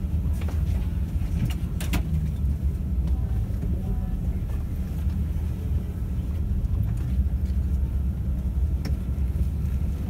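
Steady low engine rumble with a few faint clicks and knocks.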